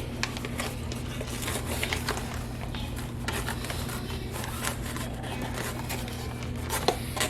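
Plastic vacuum bag crinkling and crackling in scattered short clicks as hands work wet leather down onto a saddle mold, over a steady low hum.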